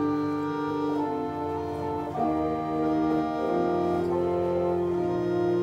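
Church organ playing slow, held chords, the chord changing every second or so.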